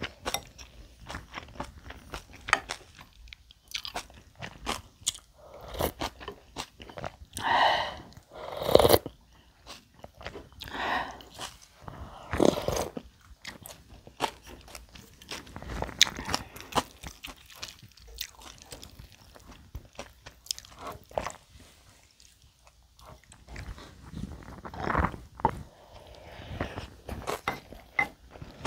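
Close-miked chewing and wet mouth sounds of someone eating bibimbap, with many short clicks as the wooden spoon and chopsticks touch a ceramic bowl.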